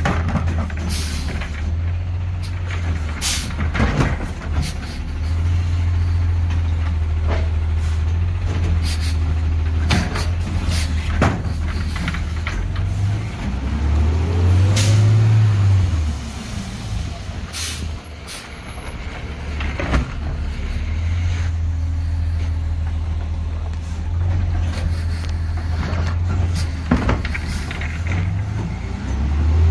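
Garbage truck's diesel engine running, revving up and back down once about halfway through. Several short air-brake hisses punctuate it.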